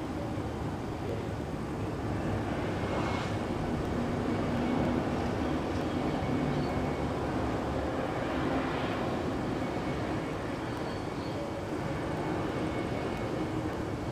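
Distant electric passenger train, an E656 locomotive with double-deck and MDVE coaches, rolling through the rail yard: a steady rumble with a faint hum, a little louder toward the middle.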